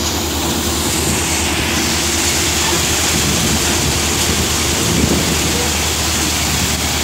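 Mahindra Hadamba threshing machine running and threshing crop: a steady, loud whirring rush from the drum and fan over a constant low drive hum.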